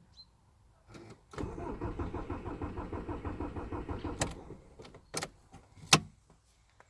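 Audi A4 B7 2.0 TDI diesel engine being cranked by the starter for about three seconds with an even pulsing rhythm, then the cranking stops without the engine catching. A few sharp clicks follow. The hard start comes from the in-tank fuel pump losing pressure while the car stands.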